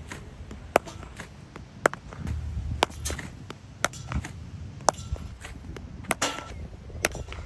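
Sharp knocks from a cricket practice net, about one a second: a hard leather cricket ball striking the bat, the pitch and the net frame during batting practice.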